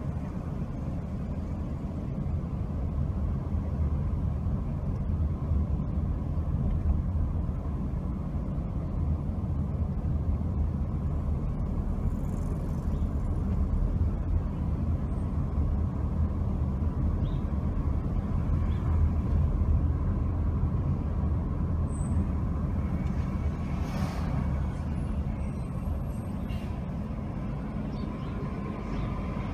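Car driving slowly in town traffic: a steady low rumble of engine and tyre noise, with one brief sharp sound late on.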